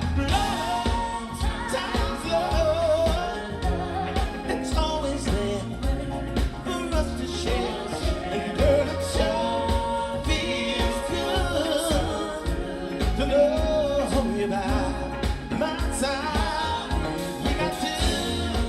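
Live soul-pop band playing, with steady drum hits, bass, and a sung vocal line with no clear words over the top.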